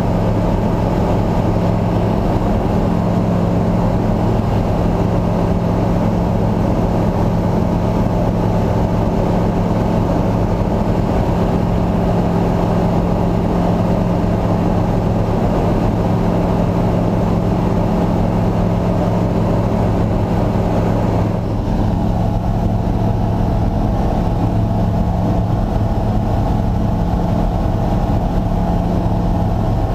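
Light aircraft's piston engine and propeller droning steadily, with a brief dip about twenty seconds in.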